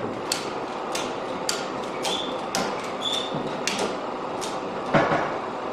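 Ratchet strap being cranked tight: a run of sharp ratchet clicks about every half second, with a slightly louder knock about five seconds in. The strap is pulling a torch-heated fuselage tube up into its bend, and a propane torch hisses steadily underneath.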